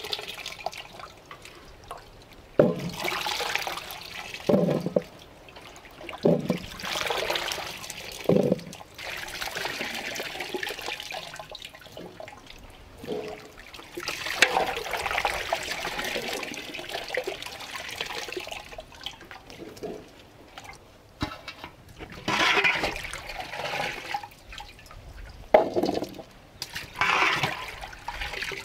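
Grapes being washed by hand in a large aluminium pot of water: water sloshing, splashing and dripping as handfuls are lifted out, with several short knocks as wet grapes drop into an empty aluminium pot.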